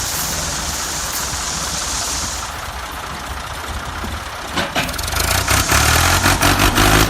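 A steady hiss, then a small engine starting about two-thirds of the way in and running with a low rumble and rapid knocking.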